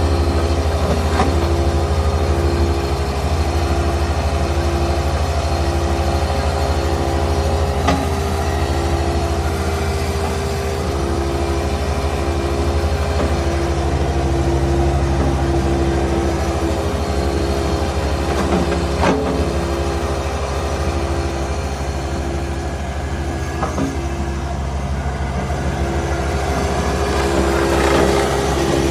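Toro TX-1000 stand-on compact loader's engine running steadily, with a higher tone over it that pulses on and off about once a second.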